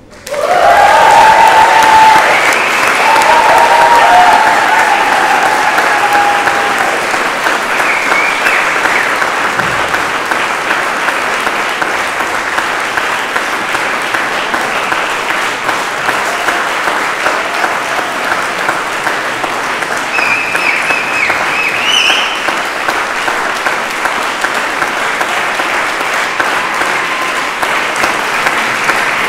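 A large audience applauding and cheering right after the band stops, the applause loudest in the first few seconds and then settling to a steady clapping, with a few high whoops above it.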